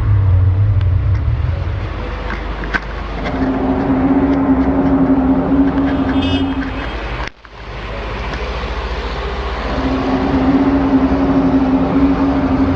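An eerie trumpet-like drone of the kind shared as the 2015 'strange sky noises': a steady horn-like tone held for a few seconds over a low rumble. It breaks off suddenly about seven seconds in and returns for another few seconds near the end.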